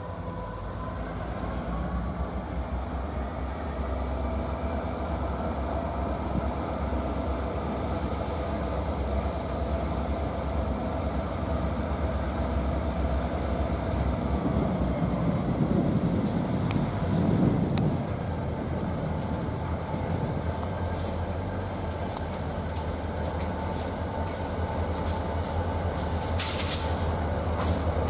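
Maryland Midland diesel freight locomotives running slowly toward the listener with a steady low engine rumble. A thin, high wheel squeal on the curve holds, then slides down in pitch midway. Sharp clicks and a short burst of noise come near the end as the lead locomotive draws close.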